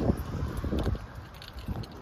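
Wind buffeting the phone's microphone, strongest in the first second and easing after, with faint footsteps while walking.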